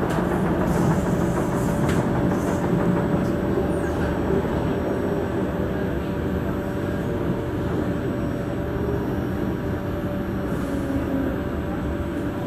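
Singapore MRT train heard from inside the carriage while running at speed: a steady rumble of wheels on rail with a faint steady whine.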